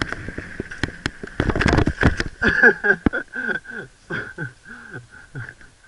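Mountain bike rattling and rushing down a dirt forest trail, ending in a loud crash about two seconds in. The rider then gives short, falling groans and gasping breaths, about three a second, that fade toward the end.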